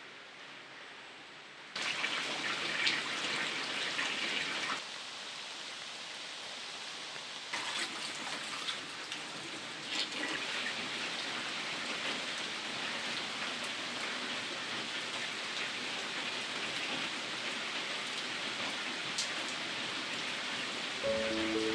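Heavy rain falling, a dense steady hiss that starts about two seconds in and shifts in level a few times.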